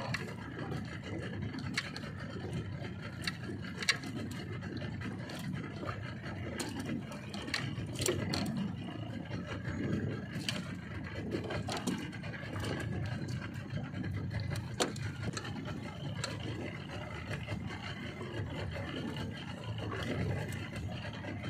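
Suzuki outboard motor running steadily at low trolling speed, with scattered light clicks and scrapes of fishing tackle being handled.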